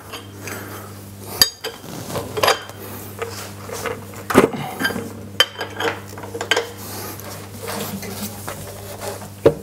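Socket wrench with an extension loosening the bolts that clamp the upper part of an Abene VHF-3 milling machine: irregular sharp metal clicks and clinks, roughly one a second, over a steady low hum.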